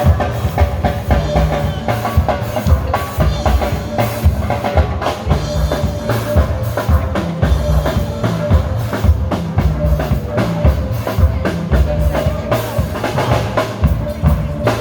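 Steel pan band playing, the pans ringing out the melody over drums that keep a steady beat.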